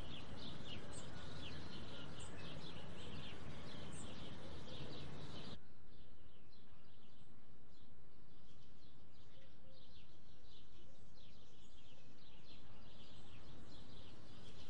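Many small birds chirping over a steady background hiss of outdoor ambience. The hiss drops off abruptly about five and a half seconds in, and the chirping carries on more faintly.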